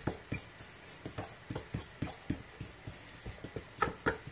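Utensil stirring dry cornbread mix (cornmeal, flour, baking powder, sugar) in a mixing bowl, a rhythmic scraping of about three strokes a second.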